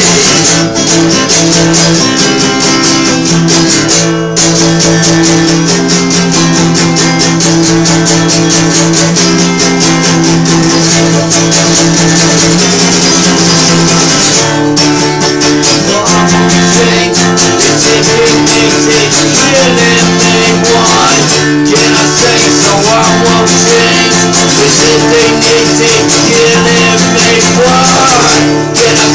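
Acoustic guitar strummed fast and hard, running through a repeating chord progression.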